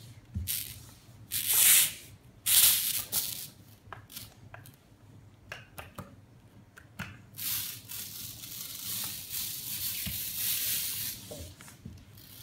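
Adhesive lint roller rolled across a foam puzzle mat, its sticky tape tearing off the foam in noisy strokes: three short strokes in the first few seconds, then a longer stretch of rolling in the second half, with a few small clicks between.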